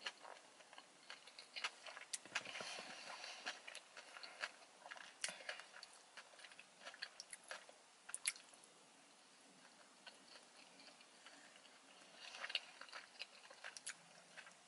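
Faint close-up chewing of sushi: soft, wet mouth noises with scattered small clicks, coming in clusters with a quieter stretch about two-thirds of the way through.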